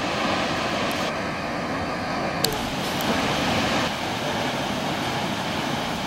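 Steady rushing noise of a tall twin waterfall's falling water, with two short clicks about two and a half and three seconds in.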